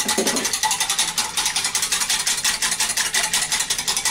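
A small whisk beating cornflour into beef stock in a glass measuring jug. The wires click and scrape against the glass in a fast, even rhythm.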